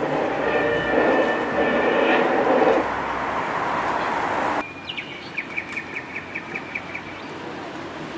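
Steady rumble of a passing rail vehicle with faint high squealing tones, cut off abruptly a little past halfway. It is followed by a quick run of about eight short, high chirps, roughly three a second.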